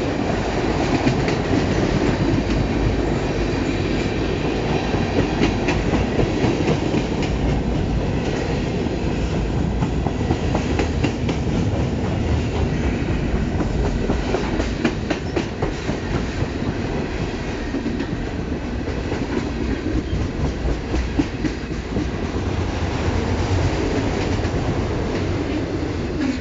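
CN freight train rolling past at close range: a steady rumble of steel wheels on rail, with clickety-clack as the wheels cross rail joints, from tank cars and then autorack cars.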